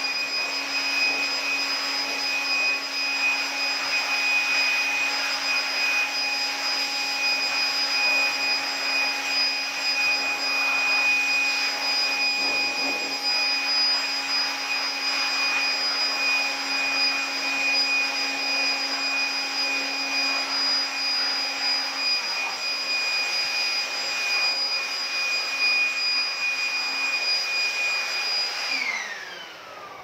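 Handheld electric air blower running at full speed, a steady high whine over rushing air, blowing water off a freshly washed window air conditioner to dry it. Near the end it is switched off and winds down with a falling whine.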